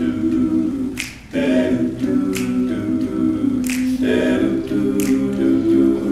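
Male a cappella group singing sustained backing chords without words, with a sharp snap on the beat about every second and a half.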